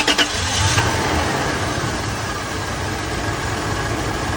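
Car engine just started, louder for about the first second as it catches, then settling into a steady idle. The engine has a cylinder misfire.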